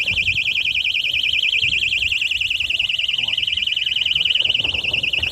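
Electronic fishing bite alarm sounding a continuous high warbling tone, the signal of a fish taking the bait and running line.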